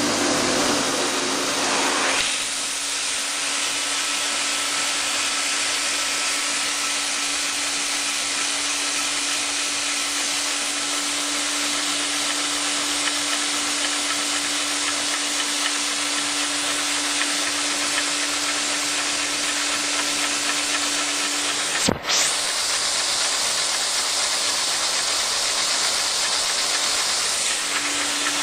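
A single-cylinder Lego vacuum engine running on suction: a steady loud rush of air with a steady hum, which climbs in pitch over the first couple of seconds as it gets going. The sound breaks off for an instant about twenty-two seconds in.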